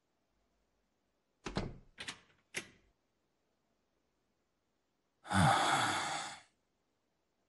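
Three short thuds, about half a second apart, then a person's drawn-out sigh, breathy with a falling tone, lasting just over a second.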